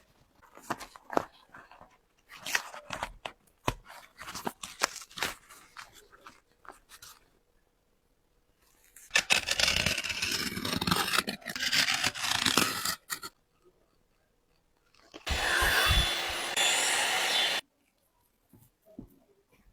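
A sneaker being cut and pulled apart: a run of sharp snips and clicks, then several seconds of ripping and scraping. Near the end comes a steady harsh rasp of about two seconds that starts and stops abruptly.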